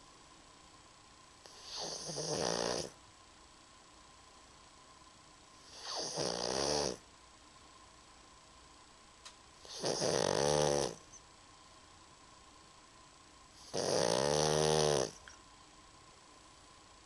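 Pug snoring in a slow, even rhythm: four snores about four seconds apart, each lasting about a second, with quiet breathing gaps between.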